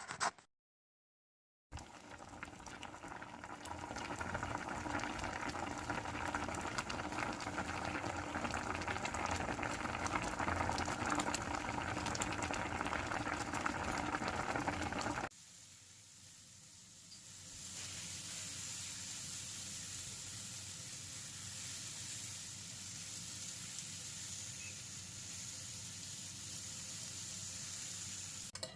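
Food cooking on the stove, in two takes. First comes a bubbling, crackling boil; after a sudden cut about midway, a steady high sizzle.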